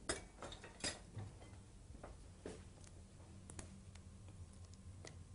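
Faint, scattered clicks and taps, about eight spread irregularly, from a spatula and a stainless steel saucepan as thick pastry cream (crème pâtissière) is scraped out into a ceramic dish.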